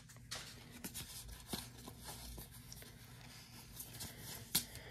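Faint handling of a stack of Pokémon trading cards: soft sliding and light ticks of card stock in the hands, with one sharper click about four and a half seconds in.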